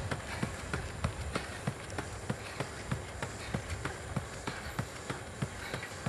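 A runner's footfalls slapping on an asphalt road at a fast running stride, about three steps a second, over a low steady rumble.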